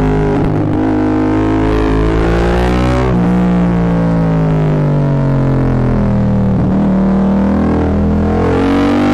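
Yamaha MT-07 parallel-twin engine through a full Akrapovic exhaust, riding through bends. The revs climb, jump up about three seconds in, fall away slowly, then rise again near the end. The sound is loud enough to overload the microphone.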